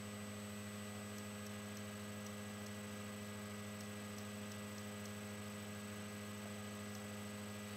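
Steady low electrical hum, like mains hum picked up by the recording device. A few faint ticks come about two to three seconds in, which fit the iPhone keyboard's key clicks as a passcode is typed.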